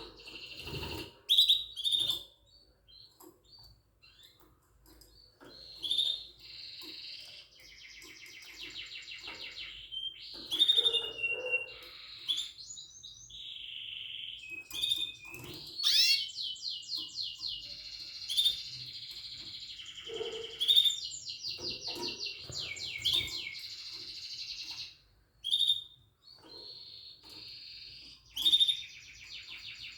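Yellow mosaic canary singing in long phrases of rapid trills and chirps, broken by short pauses.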